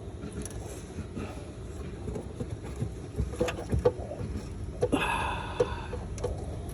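Scattered small clicks, knocks and scrapes of hands groping around the underside of a car near a plastic connector, loudest in two clusters past the middle, with a brief rasping scrape about five seconds in over a steady low rumble.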